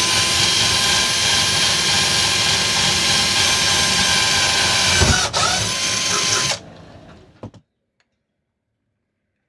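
Cordless drill running at a steady speed; its motor whine comes up to speed at the start. It catches and restarts briefly about five seconds in, then stops after about six and a half seconds.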